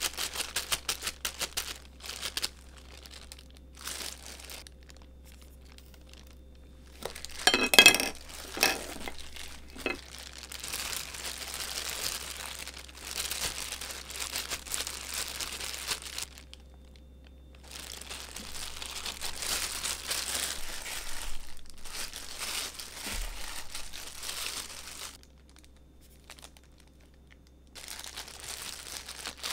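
Thin disposable plastic gloves crinkling and rustling as the hands knead, flatten and fold soft hotteok dough around a sugar filling. The crinkling comes in spells with short pauses, and there is a louder burst about eight seconds in.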